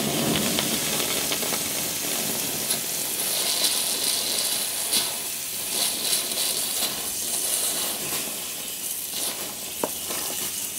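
Water poured onto a torch-heated WW1 British No. 80 artillery shell fuse, sizzling and hissing as it boils off the hot metal: the fuse being quenched.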